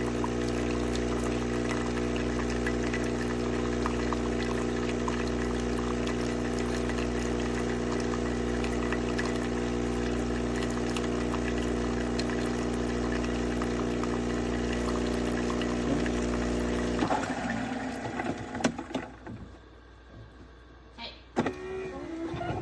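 Super-automatic espresso machine's pump running with a steady hum as it brews, cutting off abruptly about three-quarters of the way through. A few clicks follow.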